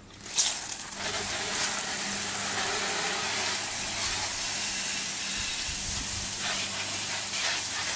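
Water spraying from a garden-hose underbody washer's PVC wand: a steady hiss of jets that comes on suddenly a moment in and holds.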